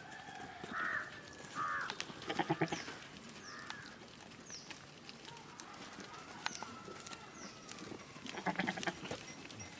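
Goats bleating: two louder wavering bleats, about two and a half seconds in and again near the end, with fainter calls between.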